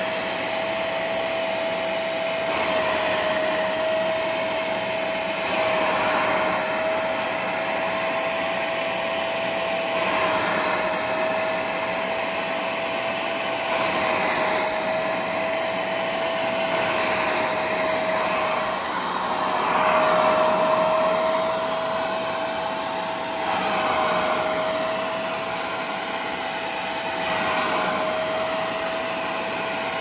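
Hoover Spotless portable carpet extractor running and sucking water and dirt out of a carpeted car floor mat through its hand tool. The motor holds a steady whine that drops out briefly a little past halfway, while the suction noise swells every three to four seconds as the nozzle is drawn across the mat.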